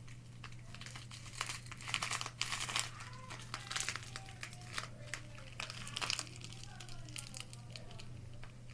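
Plastic packaging crinkling and rustling in short, irregular bursts as it is handled, over a steady low hum.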